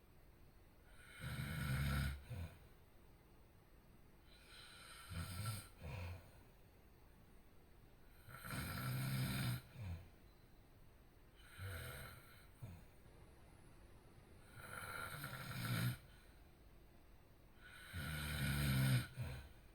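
A person snoring in deep sleep: six rasping snores, each lasting a second or so, coming about every three seconds with quiet breathing gaps between.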